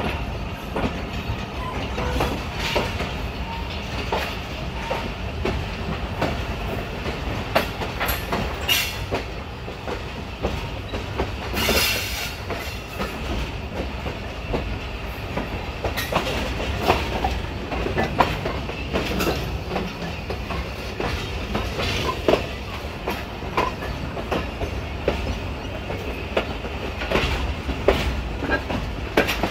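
Passenger train coaches running at speed, heard from an open door: a steady rumble of wheels on rail with irregular clicks and clatter as the wheels cross rail joints and points. A brief, louder burst of noise comes about twelve seconds in.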